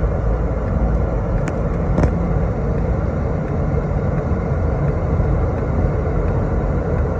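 Car driving on a snowy road, heard from inside the cabin: a steady low rumble of engine and tyres, with two short clicks about a second and a half and two seconds in.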